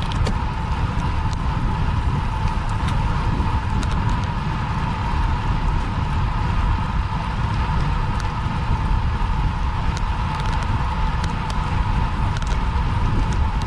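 Wind noise on a bicycle-mounted action camera's microphone while riding at speed: a steady low rush, with an even mid-pitched hum over it and scattered faint clicks.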